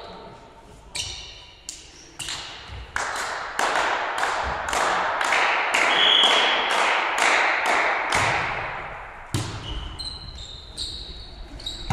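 Volleyball rally: the ball being struck and slapped by players' hands and arms, a string of sharp hits and bangs ringing out in a large echoing sports hall, thickest in the middle.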